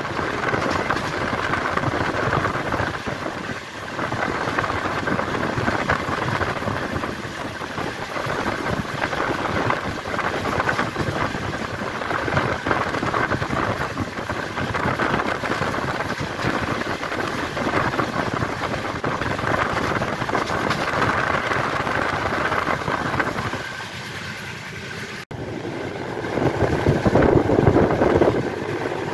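Express train running at speed, heard from an open coach door: the rumble of wheels on rail mixed with rushing wind on the microphone. The noise dips briefly and breaks off sharply near the end, then comes back louder.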